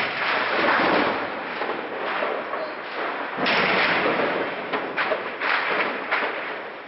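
Gunfire and blasts of heavy street fighting, echoing between buildings: repeated sharp shots with long trailing reverberation, and a louder blast or burst about halfway through.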